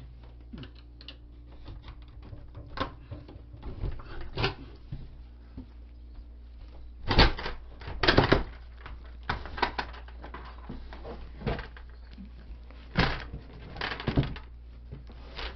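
A door being worked off its hinges once its hinge pins have been knocked out: an irregular run of sharp knocks, clicks and rattles, loudest about seven to eight seconds in and again around thirteen to fourteen seconds in.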